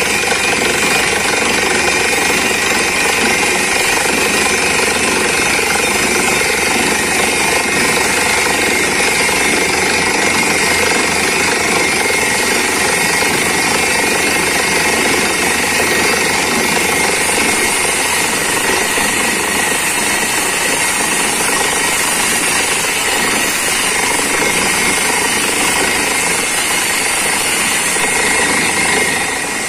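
Truck-mounted borewell rig drilling with compressed air: a steady, loud percussive hammering over the drone of the rig's engine and compressor. Water and rock cuttings are being blown up and out of the borehole.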